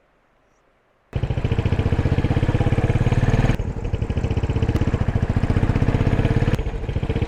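Motorcycle engine running close to the microphone with a steady, even pulse, cutting in suddenly about a second in after faint background.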